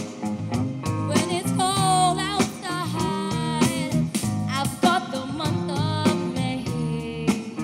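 A woman singing a slow song live with a band: a female voice with vibrato over electric bass and a steady beat.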